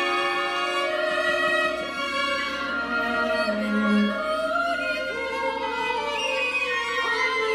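Small chamber ensemble of winds, brass and strings playing long held chords, with a violin standing out; a low note swells up and fades about halfway through.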